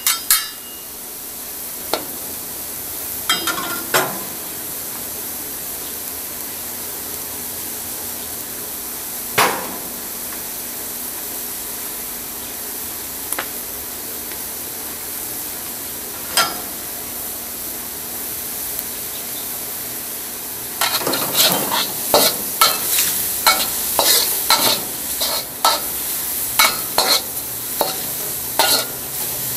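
Chicken, garlic and green onion sizzling in a dry steel wok with no oil, a steady hiss broken by a few single clacks of a metal wok spatula. About two-thirds of the way through, the spatula starts scraping and knocking rapidly against the wok as the food is stir-fried.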